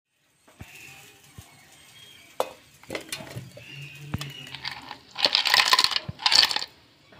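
Soft mango pieces sliding and knocking into a stainless steel mixer jar, then ice cubes tipped from a plastic bowl clattering loudly against the steel in two bursts near the end.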